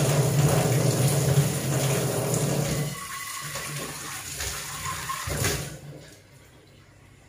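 Kitchen tap running into a stainless steel sink as a bowl is rinsed under it, loud for the first three seconds and then softer. A single knock about five and a half seconds in.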